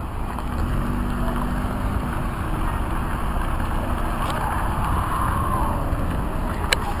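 Street traffic: a car's engine running with a steady low rumble, and one sharp click near the end.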